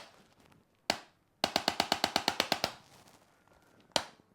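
Rapid mechanical clicking: a single click, then a run of about a dozen sharp clicks at roughly ten a second lasting just over a second, then another single click near the end.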